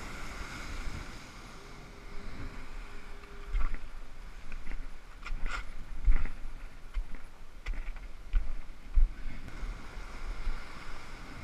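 Surf washing over shoreline rocks with wind buffeting the microphone, broken by several sharp knocks and bumps.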